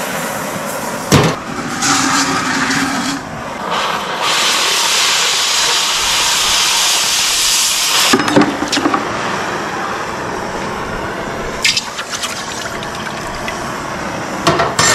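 Oxy-acetylene cutting torch hissing steadily, with a stronger rushing blast from about four to eight seconds in as it cuts through flat steel bar stock. A couple of short knocks, one near the start and one about eight seconds in.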